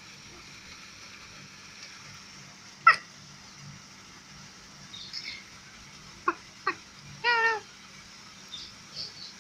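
A baby's short, high-pitched vocal sounds. There is a sharp squeak about three seconds in, two brief chirps a little past six seconds, then a longer wavering call soon after.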